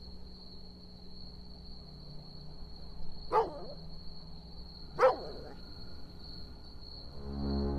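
A dog barks twice, about a second and a half apart, over a faint steady high-pitched whine and low hum. Soft music comes in near the end.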